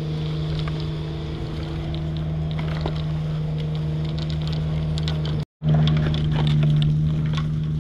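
A small engine running steadily with an even, unchanging hum. The sound drops out for a moment about five and a half seconds in and comes back a little louder.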